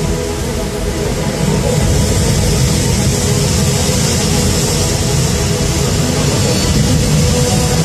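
Jet ski engine running under load to drive a flyboard, with the rush of its water jets; the sound grows louder about a second and a half in.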